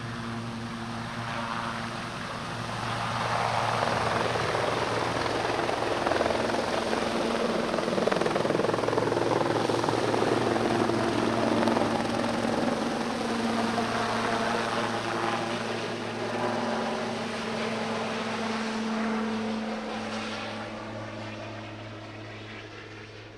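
Twin-turbine Sikorsky S-76 air-ambulance helicopter lifting off and climbing away, its rotor and turbine sound with a steady whine. It grows louder a few seconds in, then fades steadily as it flies off near the end.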